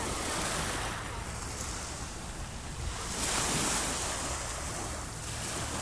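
Sea waves breaking and washing in, swelling near the start and again a little past the middle, over a steady low rumble.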